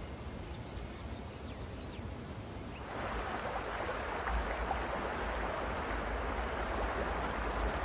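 Mountain stream rushing and murmuring, coming in about three seconds in and running on steadily over a low rumble of wind.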